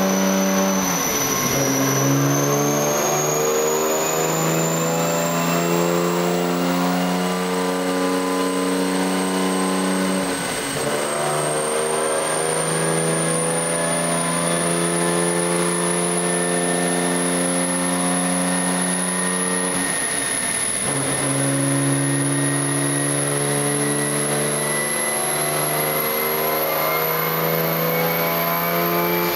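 A 1994 Toyota Supra race car's turbocharged straight-six running on a chassis dyno. Its note shifts in steps, and a high whine climbs slowly in pitch throughout.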